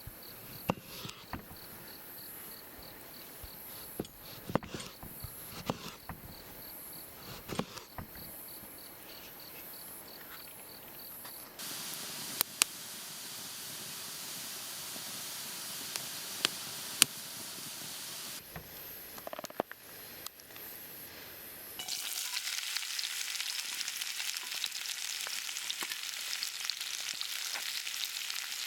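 A series of short camp-cooking shots with scattered sharp clicks and knocks, then food frying and sizzling loudly in a Nanbu cast-iron pot for the last several seconds.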